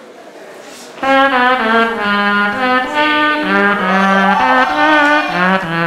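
Beatboxer imitating a trumpet with his voice into a microphone (vocal trumpet): a melody of held notes stepping up and down, with a few slides, starting about a second in.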